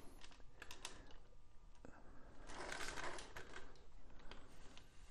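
Faint, scattered light clicks and a brief rustle a little after two and a half seconds in, from straps and their buckles being handled.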